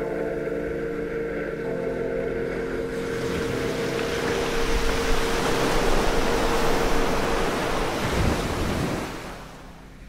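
Rushing, surging water like surf, swelling up under a fading held music chord, loudest in the middle and dying away near the end.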